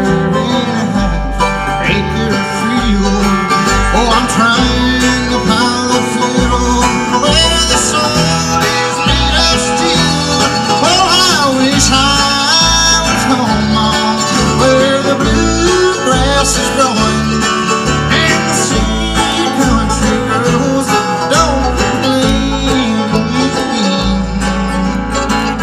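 Live bluegrass band playing an instrumental break with no singing: quick picked melody lines on acoustic guitar and other string instruments over a steady stepping bass line.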